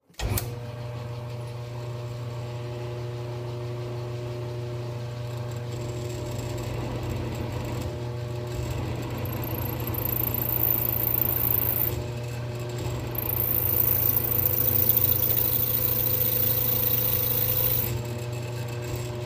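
Rong Fu RF-31-style mill-drill spindle starting up and running steadily with a hum. About halfway in a high-pitched squeal starts as the drill bit rubs on a broken, hardened center drill stuck in the workpiece without cutting it. The squeal breaks off briefly and stops a little before the end.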